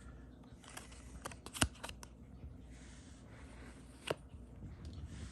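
Handling of the watch's box and its paper cards: soft paper rustling with a few sharp clicks and taps, the loudest about one and a half seconds in and another about four seconds in.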